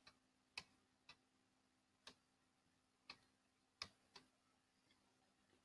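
Faint, sharp clicks of a computer pointing device, about half a dozen at irregular intervals, as strokes of handwriting are drawn on screen.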